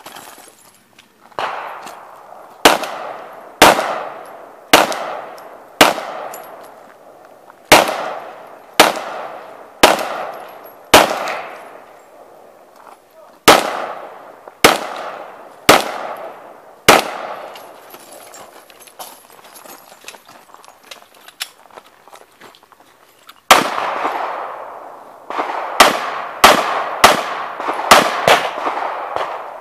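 A string of single gunshots from a shooter working through a practical-shooting stage, each shot sharp with a ringing echo. About a dozen come roughly one a second, then after a pause of several seconds a quicker run of shots follows near the end.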